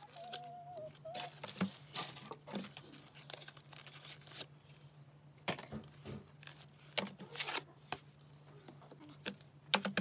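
A tablet folio cover being unpacked by hand: its cardboard box and plastic packaging rustle and crinkle, with scattered sharp clicks and taps, over a low steady hum.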